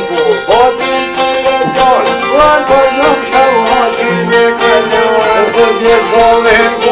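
Albanian folk string ensemble playing: two long-necked plucked lutes, a sharki and a çifteli, strummed and plucked in quick notes, with a violin bowing a bending, ornamented melody over them.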